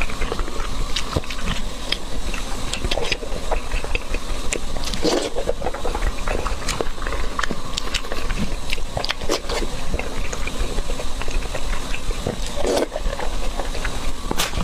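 Close-up crunching and chewing of crispy fried chops: many small irregular crisp crackles and bites, over a steady low hum.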